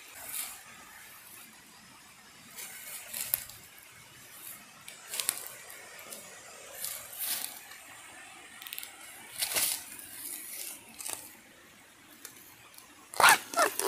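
Footsteps and hands rustling and crunching through dry bamboo leaves and litter in scattered short bursts. Near the end, a louder squeaky cracking tear as a young bamboo shoot is twisted and snapped off by hand.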